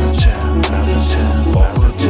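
Hip hop beat with a heavy sustained bass and regular drum hits, no vocals heard.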